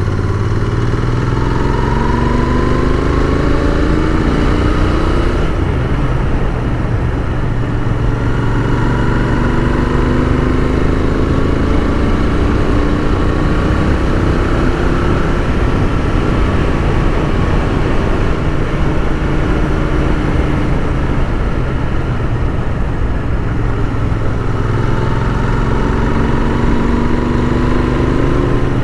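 Royal Enfield Continental GT 650's 648 cc parallel-twin engine under way, its pitch rising in several acceleration pulls over steady wind noise.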